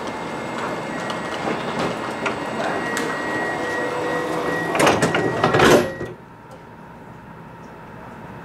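Commuter train's sliding passenger doors closing at a station stop. A steady high warning tone sounds for several seconds, then the doors slide shut in a loud mechanical rush about five to six seconds in. The platform noise cuts off suddenly, leaving a quieter steady cabin hum.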